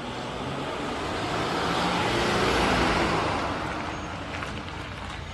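Light box-bodied rescue truck driving past. Its engine and tyre noise swell to a peak a little past halfway, then fade as it goes by.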